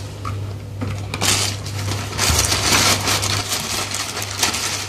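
Grey plastic postal mailer bag rustling and crinkling as hands rummage inside it, starting about a second in, over a steady low hum.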